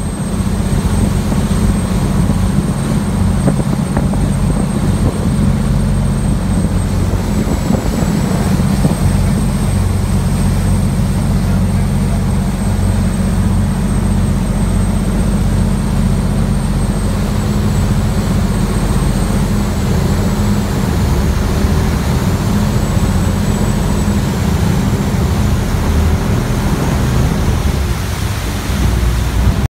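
Khlong Saen Saep canal express boat's diesel engine running loud and steady under way, with a thin high whine held above the drone.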